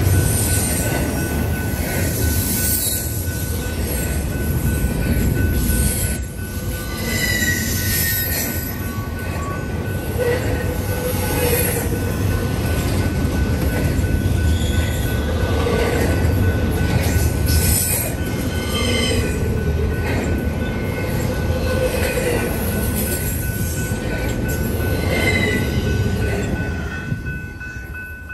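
Double-stack intermodal container well cars rolling past with a loud steady rumble, the wheels squealing in high tones that come and go. The sound drops away near the end as the last car clears.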